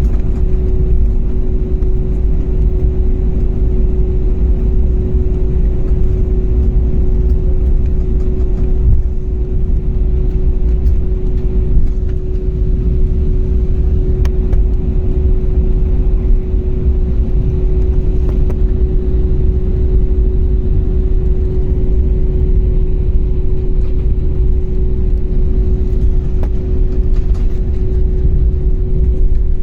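Steady, loud engine rumble with a constant hum at one pitch, unchanging throughout.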